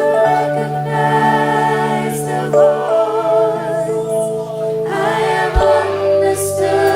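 A group of women singing a slow gospel song in harmony over held accompaniment chords.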